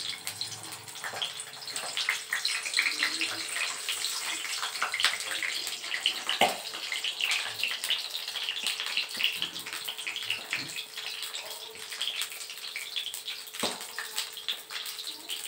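Whole small brinjals frying in hot mustard oil in an aluminium kadai: a steady sizzle full of spitting crackles, with two sharp clicks, one about six seconds in and one near the end.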